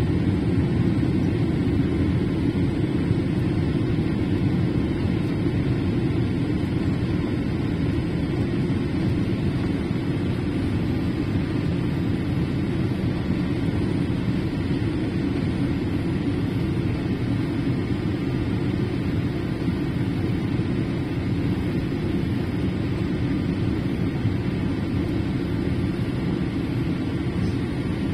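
Steady cabin noise inside a Boeing 787-8 on approach: a low, even rush of airflow and engine noise, with a faint steady whine.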